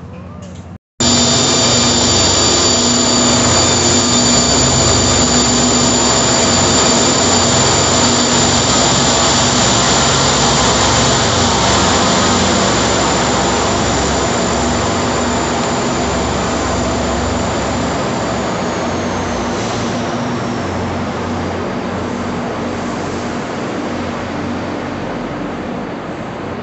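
Railway locomotive running at close range: a loud, steady whirring rumble with several high whining tones. It cuts in abruptly about a second in; a little past halfway the highest whine slides down in pitch and the sound slowly eases off.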